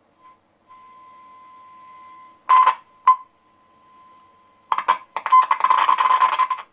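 A 1939 Rolax five-valve radio's loudspeaker reproducing a signal generator's steady test tone, which cuts in and out among loud bursts of crackle, twice briefly about halfway and then a long crackly stretch near the end: the sign of a dodgy connection somewhere in the set.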